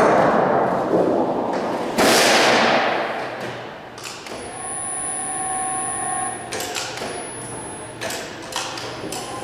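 A large 24-gauge sheet-steel panel rumbling and rattling as it flexes while being flipped and laid onto a sheet-metal folder's bed, with a sudden loud surge about two seconds in. Later comes a steady whine lasting about two seconds, then a few knocks as the sheet is positioned.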